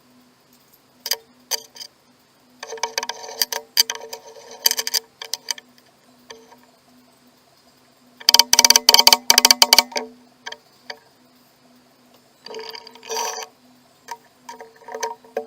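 A benchtop mill cutting 6061 aluminium, heard sped up: irregular clusters of sharp, ringing cutting bursts over a steady motor hum.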